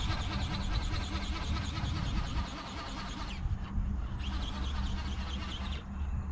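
Buzz of the small electric motor and gearbox of an RC flapping-wing ornithopter (the 'Condor' model) in flight, a fast-repeating mechanical buzz over a steady low rumble. The buzz cuts out briefly a little after three seconds, returns, and stops again near the end.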